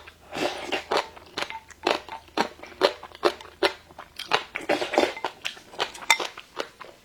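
Close-up chewing of crisp pickled radish strips, a sharp crunch about twice a second.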